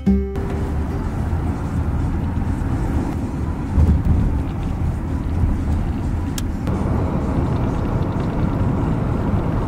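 Steady outdoor rumble and hiss with a heavy, fluctuating low end, its tone shifting about two-thirds of the way through.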